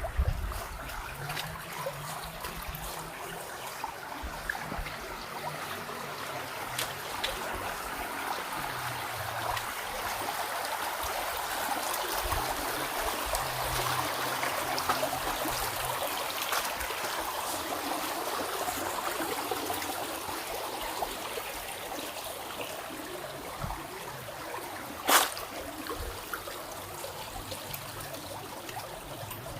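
Stream water flowing and trickling, growing louder toward the middle and easing off again, with one sharp click about 25 seconds in.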